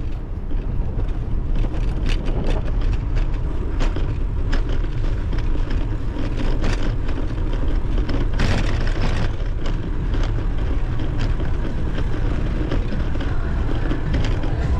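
Ride noise while cycling: a steady low wind rumble on the microphone with frequent small rattling clicks, and a louder rush of noise lasting about a second, about eight seconds in.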